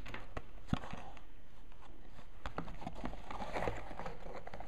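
Hands handling a small cardboard box with a foam insert: a few light knocks and taps, then a rustling scrape of cardboard as the lid is closed, about three seconds in.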